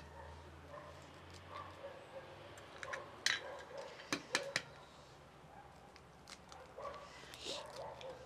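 Eggs cracked on the rim of a clay bowl: a few sharp taps and cracks about three to four seconds in, with lighter ones near the end. Faint wavering whines sound now and then in the background.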